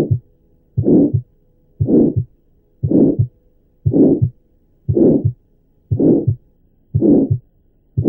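Heart sounds of tetralogy of Fallot with moderate pulmonary stenosis, about one beat a second. In each beat a loud, intense systolic murmur fills the gap between the first and second heart sounds. The murmur comes from blood forced through the narrowed pulmonary outflow.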